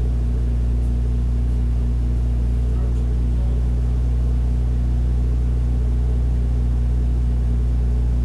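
Gazelle kit car's engine idling, a steady low drone that does not change in pitch or level.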